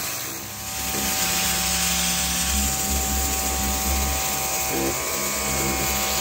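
Pressure washer running, its spray hitting an aluminium boat hull to blast off paint loosened by oven cleaner: a steady hiss of water over a motor whine.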